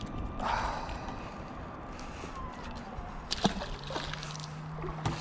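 A small bass is let go over the side of the boat and hits the water with a brief splash. A couple of sharp clicks follow, and a low steady hum starts a little before the end.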